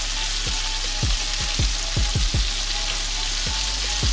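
Battered chicken breast pieces deep-frying in hot oil in a stainless steel pot: a steady sizzle with short low pops here and there.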